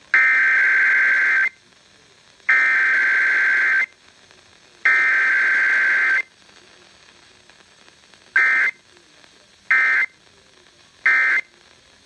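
Emergency Alert System SAME data bursts of a required weekly test: three long, raspy two-tone digital header bursts of about a second and a half each, then three short end-of-message bursts.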